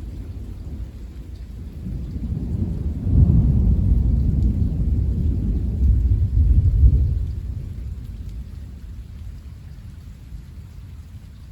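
Rolling thunder: a deep rumble that builds about two seconds in, stays loudest for several seconds, then slowly fades, over steady rain.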